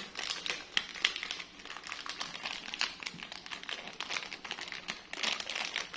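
Plastic pastry wrapper crinkling as it is picked and peeled open by hand: a stream of small irregular crackles, busiest near the end.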